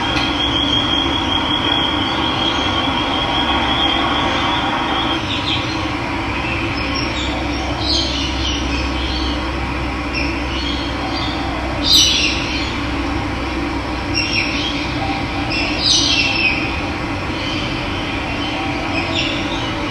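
Running water rushing steadily, with birds calling over it. A thin high trill holds for the first few seconds, then short chirps come now and then, the loudest about halfway through.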